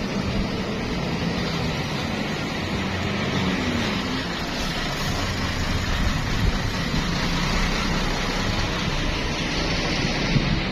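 Large bus engine running close by, a steady low rumble mixed with road and air noise.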